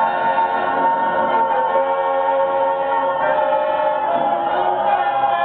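Choir singing long held chords over backing music, the chords shifting a few times.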